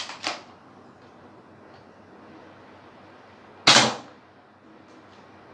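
Plastic toy pistol: two quick clicks at the start as it is handled and readied, then one sharp shot nearly four seconds in, the loudest sound.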